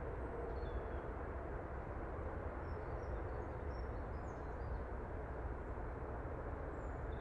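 Outdoor ambience: a steady low rumble, with small birds giving short, high chirps scattered throughout.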